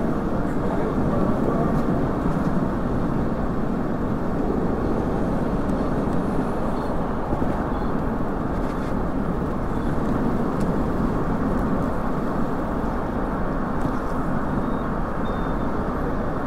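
Steady rumble of wind and road noise from riding a bicycle alongside city car traffic, with no distinct events.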